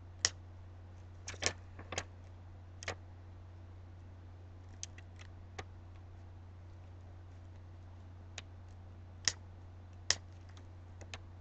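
Small scissors snipping out a stencil from a stencil sheet: scattered short, sharp snips at irregular intervals, a few bunched close together, over a low steady hum.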